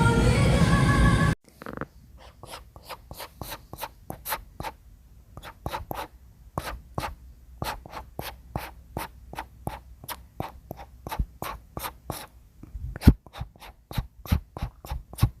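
Brush strokes on wood: a brush is swept repeatedly across a surface in short, quick strokes, about two or three a second, irregular, with a few louder strokes near the end. Background music cuts off about a second in.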